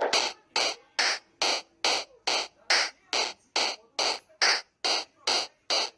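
A steady beat of short hissing noise bursts, a little over two a second, with no tune or pitched notes, like a shaker or noise percussion loop.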